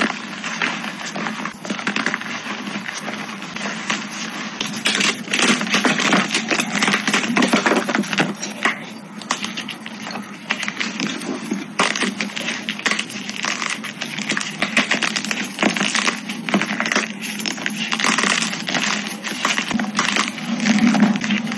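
Blocks of dyed gym chalk crushed and crumbled by hand: dense crunching and crackling of breaking chalk pieces, dipping briefly about ten seconds in.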